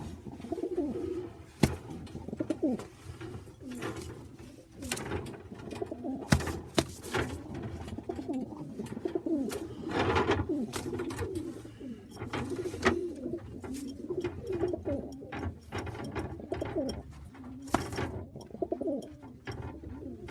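Racing pigeons cooing over and over in a small loft, with frequent sharp clicks and knocks among them.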